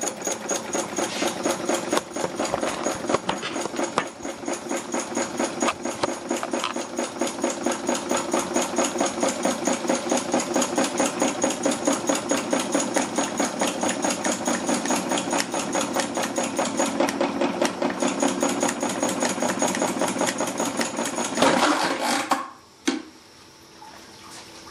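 Home-built Stirling engine running with a rapid, even mechanical clatter from its crank and displacer drive. About 22 seconds in it gives a louder clatter and stops abruptly, with one last knock: the displacer linkage has broken as the engine is pressurized.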